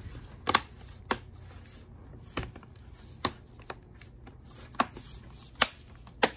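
Snap clips of an HP 15 laptop's plastic keyboard deck clicking into the bottom case as the edge is pressed down: about eight sharp clicks at irregular spacing, each one a clip engaging as the case is sealed shut.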